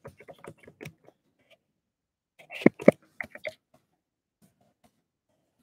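Light clicks and taps close to the microphone, with a short cluster of louder sharp taps about two and a half seconds in, then only a few faint ticks.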